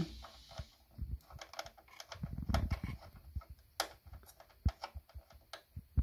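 Small screwdriver tightening the retaining screw of an M.2 NVMe SSD on a desktop motherboard: irregular light clicks and ticks of the tip working in the screw head. There are a few sharper clicks in the second half and some dull low bumps around the middle.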